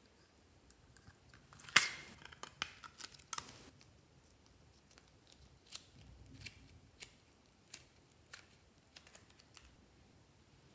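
Plastic clicks and snaps from handling a plastic wet-wipe case: one sharp snap about two seconds in, a quick flurry of smaller clicks after it, then scattered light ticks.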